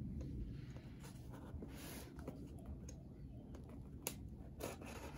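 Utility knife blade slicing along the packing tape on a cardboard box: faint scraping, with a couple of sharp clicks near the end.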